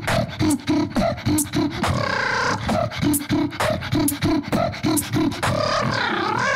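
Beatboxer performing a steady vocal drum beat, with sustained synth-like pitched vocal tones laid over it about two seconds in and again near the end, the later one wavering up and down.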